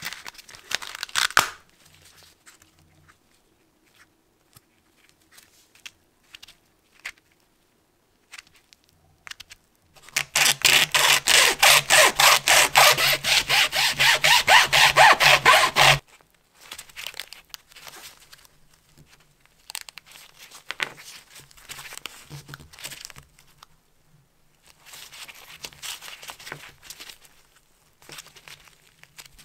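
Hacksaw cutting through a small pleated-paper air filter element with metal end caps, in quick, even strokes for about six seconds starting some ten seconds in. Afterwards the paper pleats crinkle and tear as the element is pulled apart by hand.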